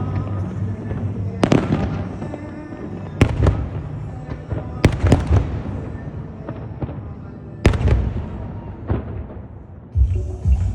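Aerial fireworks bursting, about six sharp bangs a second or two apart with crackling and echoing tails between them, over music playing underneath. Near the end the bangs stop and the music comes up louder.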